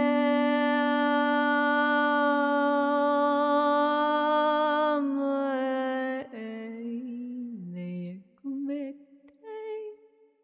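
A voice holding one long chanted tone, steady in pitch, for about six seconds. After a click it gives way to quieter, wavering vocal sounds that shift in pitch.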